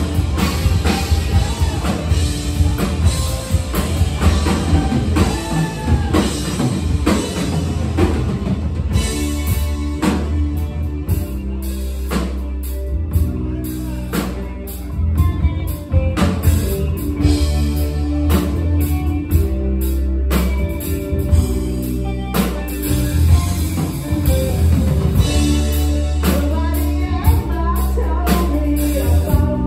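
Live rock band playing: electric guitar, bass guitar and drum kit, with a lead vocal sung in parts.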